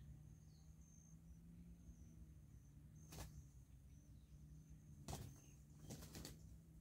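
Near-silent outdoor ambience with a faint, high, steady insect-like buzz. A single sharp click comes about three seconds in, and a quick cluster of clicks follows about five to six seconds in.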